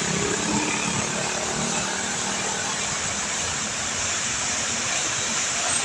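Water fountain splashing: a steady, even rush of falling water.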